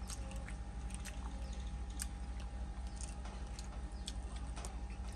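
Close chewing and small wet mouth clicks of a man eating with his fingers, with light sounds of fingers picking at food in a bowl, over a steady low hum and a faint steady high tone.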